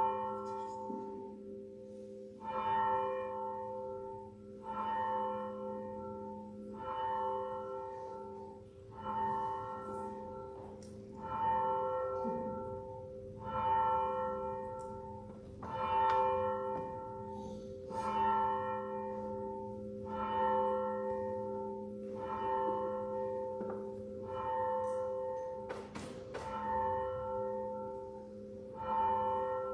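A church bell tolling steadily, about one stroke a second with every other stroke louder, its hum ringing on between strokes.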